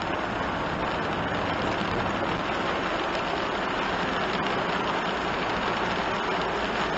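Steady driving noise inside a kei one-box van on a wet road in heavy rain: tyres hissing on the wet asphalt, rain on the windshield and the engine running.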